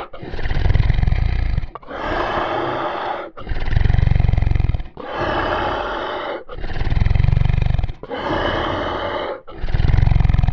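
Zombie growl sound effect: a rasping growl repeated in a steady loop, with short gaps about every one and a half seconds. Deeper, bass-heavy growls alternate with raspier, higher ones.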